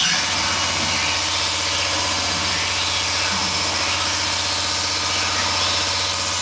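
Speedcore over a club sound system: a rapid, unbroken run of distorted kick drums under a harsh, noisy layer of distortion.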